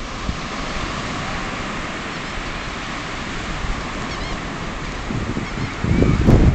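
Steady wash of ocean surf breaking on a beach, with a few faint high bird calls. About six seconds in, wind buffeting the microphone turns loud.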